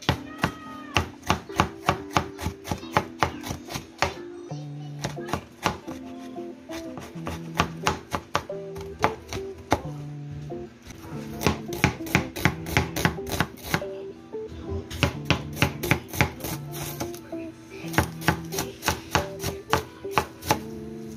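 A cleaver chopping vegetables on a wooden cutting board in quick runs of sharp knocks with brief pauses: herbs and peppers, then onion. Background music plays underneath.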